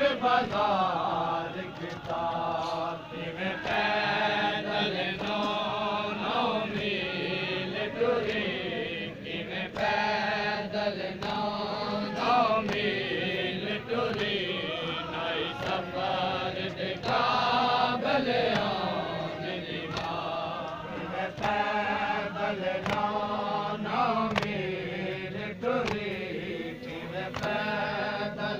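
Voices chanting a Punjabi noha, a Muharram lament, the same short sung phrase repeating about every two seconds, with a faint regular beat under it.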